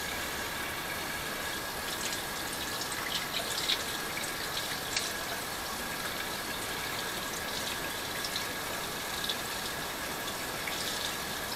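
Kitchen faucet running steadily into a sink, with a few faint clicks of handling in the first half.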